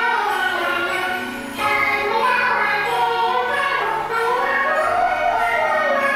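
Music with singing: a sung melody over held low accompanying notes, with a short lull about a second and a half in.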